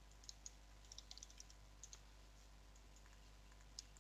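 Faint, scattered clicks of a computer keyboard and mouse, with a quick run of keystrokes about a second in, over a low steady hum.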